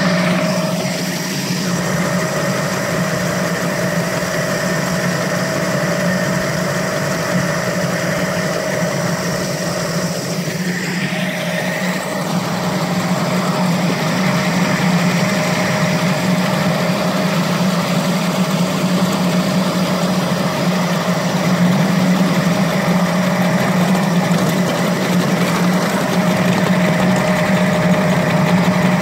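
A 5-inch gauge model Drewry shunter locomotive hauling a loaded train of passenger cars: a steady mechanical hum from its drive with the rolling rumble of the wheels on the track, a little louder in the second half.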